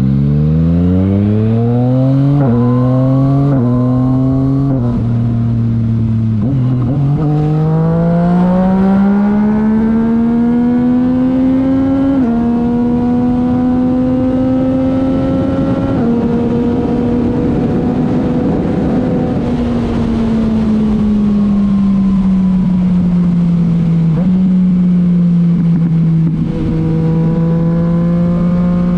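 Yamaha MT-09's three-cylinder engine through a titanium Akrapovic exhaust, accelerating hard with quick clutchless quickshifter upshifts: the revs climb and snap down four times in the first seven seconds. It then pulls long to a high steady cruise before easing off, with the revs falling slowly.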